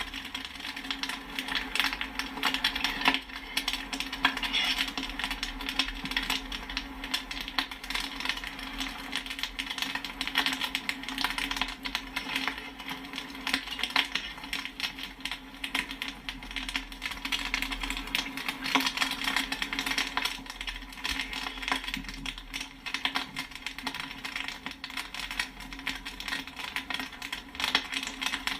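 Popcorn kernels popping in rapid, irregular succession, with sharp pings as they hit the sides of the container, over a steady low hum.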